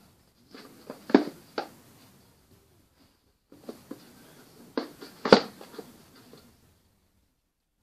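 A cardboard game box being handled and set down on a wooden floor: a few knocks and rustling scrapes in two groups, the loudest a sharp knock about five seconds in.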